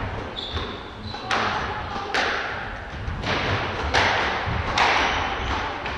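Squash rally: the ball is struck and hits the walls about once a second, each sharp crack ringing out in the echoing court. Shoes give a brief high squeak on the wooden floor near the start.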